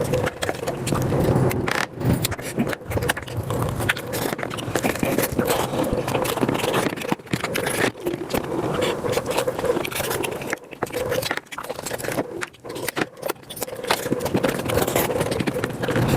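Sped-up eating sounds: fast, continuous chewing, sucking and slurping on mutton bone marrow and meat, with many small clicks and scrapes.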